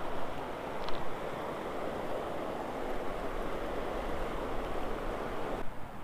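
Steady rush of a river's current running over rocks, with one light click about a second in. The rush drops away abruptly near the end.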